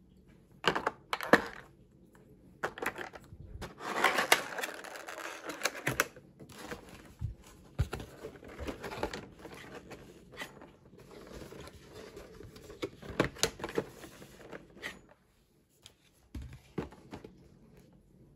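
Packaging being handled: sharp clicks and knocks of small glass whisky miniatures set into a plastic tray, and scraping and rustling of stiff cardboard panels as the gift box is folded shut. A denser stretch of scraping comes about four seconds in, with scattered taps throughout.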